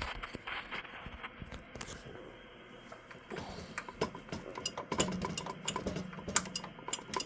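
Scattered light clicks and taps of hands handling the metal chassis and parts of an opened vintage HP 606A signal generator, sparse at first and busier in the second half.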